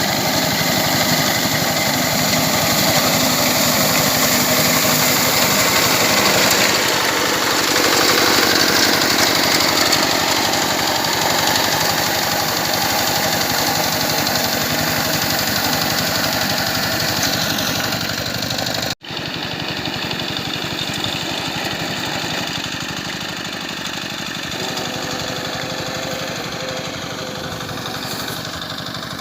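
Small engine of a paddy reaper running steadily under load as it cuts rice, with a fast even firing beat. The sound breaks off for an instant about two-thirds of the way through and resumes a little quieter.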